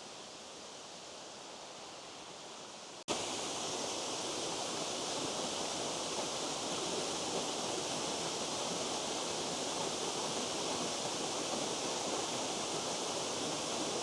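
A wee waterfall's water rushing steadily. About three seconds in the sound cuts suddenly to a louder, fuller rush.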